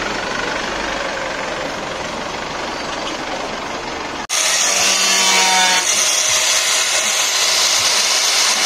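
An Isuzu D-Max pickup idling amid street noise, then an abrupt cut about four seconds in to a handheld power tool with a spinning disc, running with a steady whine over a hiss.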